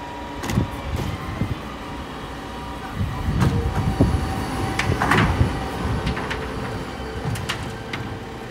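Refuse lorry's rear Terberg OmniDEL bin lift raising and tipping a wheelie bin over the running truck, with repeated knocks and clanks as the bin is lifted and emptied into the hopper. The clatter is loudest a few seconds in.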